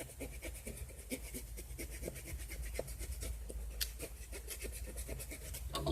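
Leatherman Sidekick multi-tool's small saw blade rasping through a wooden stick in quick, short, even strokes.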